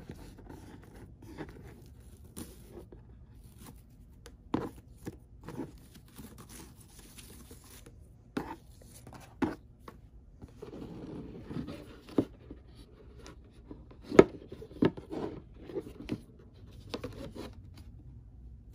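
Handling of a rigid cardboard gift box as a ribbon is untied and the lid lifted off: scattered taps and knocks of cardboard with rustling and scraping. The sharpest knock comes about three-quarters of the way through.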